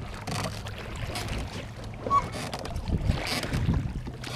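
Water sloshing and splashing around a small boat, with wind on the microphone and a steady low hum under it.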